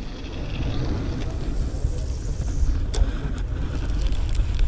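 Wind buffeting the microphone, a steady, fluctuating low rumble, with a few faint clicks over it.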